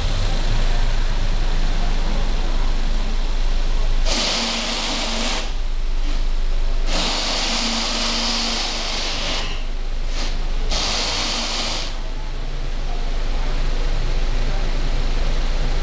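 Volkswagen Golf's engine idling steadily, with three stretches of hiss between about four and twelve seconds in.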